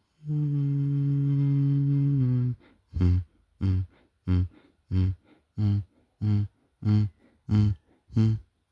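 Background music: a low note held for about two seconds that dips slightly in pitch, then short low notes repeated evenly, about three every two seconds.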